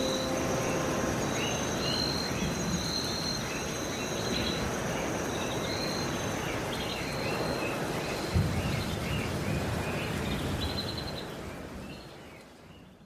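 Outdoor background noise with small birds chirping again and again and a steady high insect-like tone, with one dull thump about eight seconds in. It fades out near the end.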